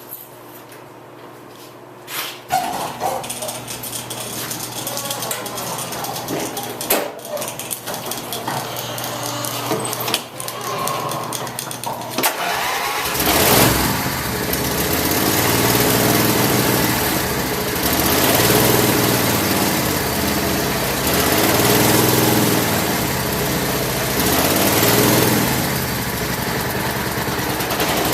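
A few seconds of clatter and knocks, then the Craftsman lawn tractor's engine starts about halfway through and keeps running, its note swelling and easing every few seconds. The tractor has just been brought back from a no-start with a new fuel pump and a rebuilt carburetor.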